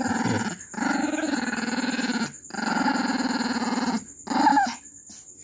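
Pinscher dog growling playfully while tugging on a rubber ball: three long, low growls with short breaks between them, then a short, louder, higher-pitched note about four seconds in.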